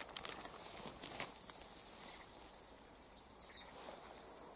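A plastic bag crinkling in a few short rustles during the first second or so, then faint outdoor background.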